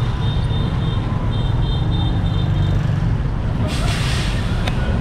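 Heavy roadside traffic: a steady low rumble of container trucks' diesel engines idling in a queue, with motorbikes passing close by. A short hiss comes about three and a half seconds in.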